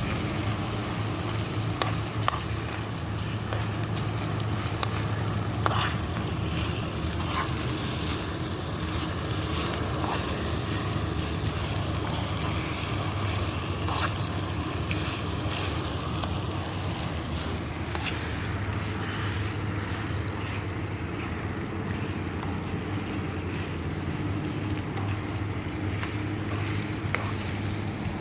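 Food sizzling as it fries in a pan, a steady hiss with a few scattered clicks.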